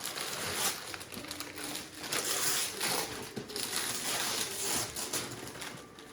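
Wrapping paper being torn and crumpled as a present is unwrapped: a run of irregular rips and crinkles.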